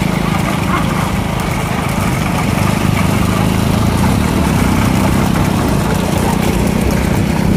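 A small vehicle engine running steadily at an even speed, with a constant hum and a broad rushing noise over it.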